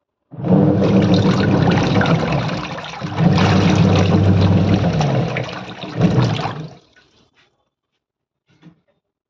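Semi-automatic washing machine running with water in it: a steady motor hum under loud rushing, churning water. It stops briefly about three seconds in and again near six seconds, then cuts off before the end.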